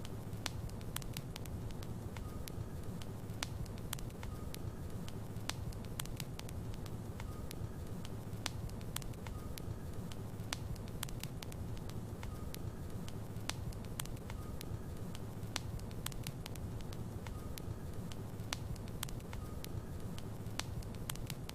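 Wood fire burning in a fireplace: many sharp, irregular crackles and pops over a steady low rumble of flames.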